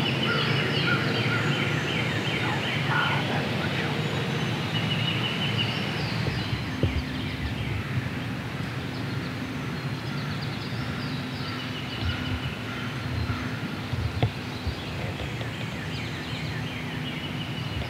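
Wild turkey gobbler gobbling from its roost, a rapid rattling call in the first few seconds, over a steady hissing background.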